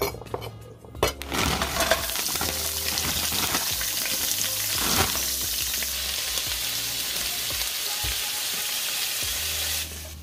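A couple of knife chops on a wooden cutting board, then diced onion and vegetables sizzling in oil in a frying pan, a steady hiss that stops shortly before the end.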